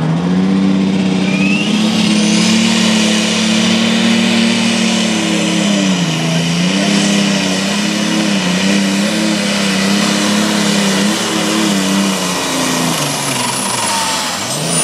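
The engine of a Minneapolis-Moline G950 light limited super stock pulling tractor runs at high revs under full load, pulling the sled. About six seconds in, the pitch sags and then wavers up and down as the engine is dragged down by the sled's growing load. Near the end it eases off as the pull finishes.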